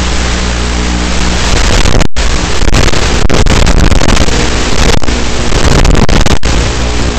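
Emax mini FPV quadcopter's motors running, heard through the analog video link's audio under heavy hiss. The sound cuts out completely for an instant twice, about two seconds in and near the end.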